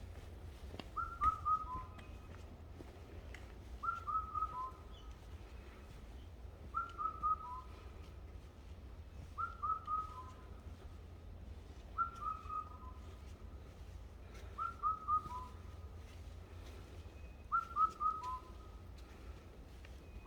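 A wild bird singing a short whistled phrase, three quick falling notes followed by a single lower note, repeated regularly about every three seconds, with a steady low rumble underneath.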